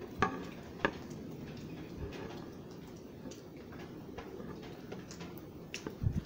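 Quiet handling noise: a few light clicks and taps as a brass tomahawk casting and its wooden pattern are moved about by hand, with a low thump near the end, over faint steady room noise.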